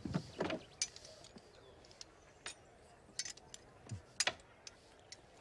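Metal surgical instruments clicking and clinking as they are handled and set down on a table: a few sharp, scattered clicks, with a brief lower sound about half a second in.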